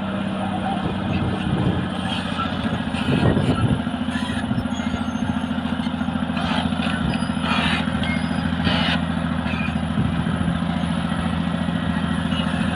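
Caterpillar D6R bulldozer's diesel engine running steadily, swelling louder briefly about three seconds in.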